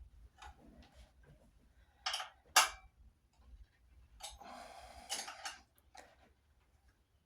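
Clicks and metallic clatter of hand tools and parts while the bolts holding a scooter's headlight cage are taken off, with a sharp knock about two and a half seconds in and a longer scraping rattle around the middle.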